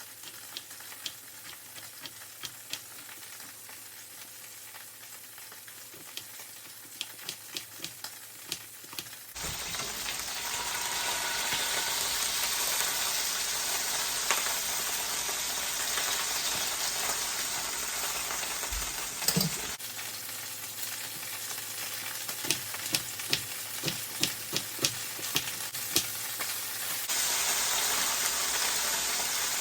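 Beef roast searing in hot oil in a frying pan: a steady sizzle that jumps louder and softer abruptly a few times. Sharp knife taps on a cutting board come in runs as onions are sliced.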